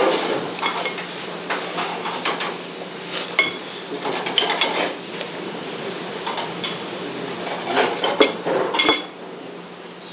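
Cutlery clinking and scraping against plates during a meal, with scattered sharp clinks, some of them ringing, and a busier cluster of clinks near the end. A steady low hum runs underneath.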